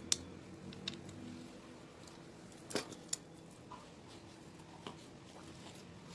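Metal hand tools clinking against a road bike's crank and chainring bolts while the chainring is being unbolted: a few sharp, separate clicks, the loudest a little under three seconds in.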